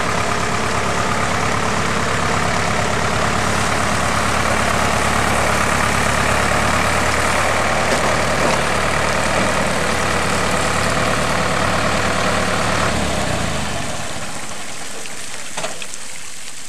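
Small farm tractor's engine running steadily while its front boom lowers a field bin of apples into a water dunk tank. About 13 seconds in the engine sound falls away, leaving a fainter steady hiss with a couple of light clicks.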